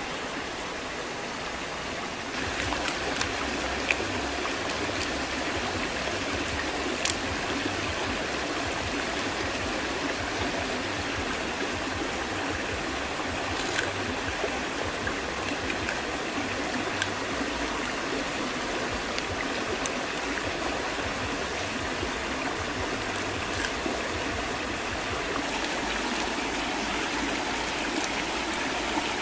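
Shallow rocky stream running over stones: a steady rush of water that gets a little louder about two seconds in, with a few faint clicks.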